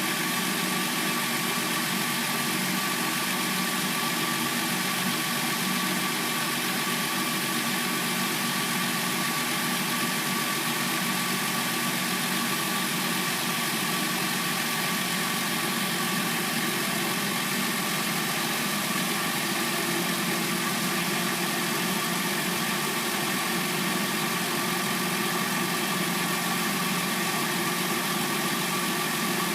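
A Hyundai Sonata's replacement engine idles steadily, warming up after a cold start.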